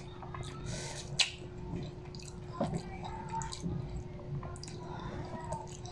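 Eating sounds: chewing, with scattered small clicks and scrapes of a plastic spoon and fork working food in a paper box.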